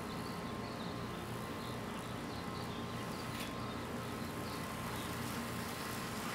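Small electric motor of an HO scale diesel model locomotive running, a steady faint buzzing whine as it climbs the grade of the helix on track power.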